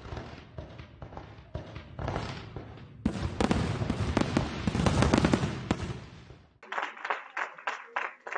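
Fireworks sound effect: popping and crackling bursts that build into a loud, dense crackle from about three seconds in, then cut off sharply. Near the end, hands clapping in quick, separate claps.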